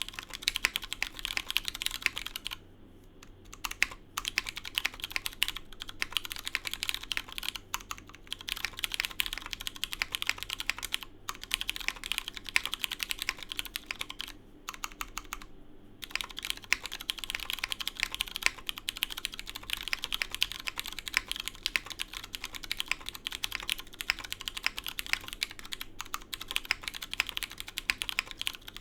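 Continuous typing on a Kibou LamyTKL mechanical keyboard with lubed Cherry MX Hyperglide Brown tactile switches in an O-ring-mounted polycarbonate plate, under PBT keycaps: a dense run of keystroke clacks, with brief pauses at about 3 seconds in, at about 11 seconds in and at about 15 seconds in.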